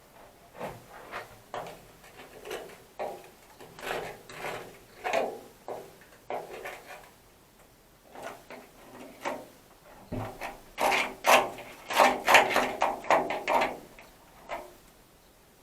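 A run of short, irregular scraping and rubbing strokes from hand work on the vehicle's body, coming louder and closer together in the last few seconds.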